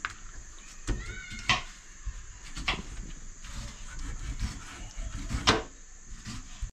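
Kitchen knife scraping scales off a fresh fish at a steel sink: a few separate sharp scraping strokes, the strongest near the end, with a short squeak about a second in.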